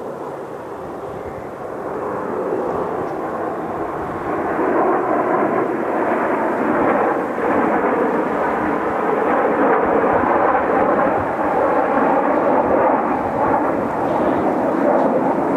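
Kawasaki T-4 jet aircraft flying over, their engine noise building over the first four or five seconds and then staying loud and steady.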